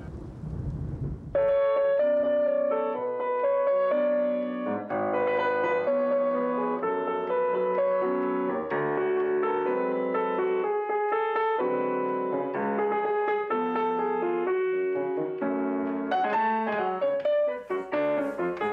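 Piano music: a melody of separate notes over a lower accompaniment, coming in about a second in after a fading low rumble, with the notes getting quicker near the end.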